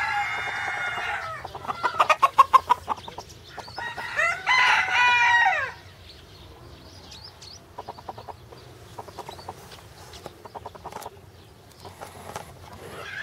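Pavlovsk rooster crowing twice, one crow at the very start and a second about four seconds in, with a quick run of loud clucks between them; fainter clucking follows near the end.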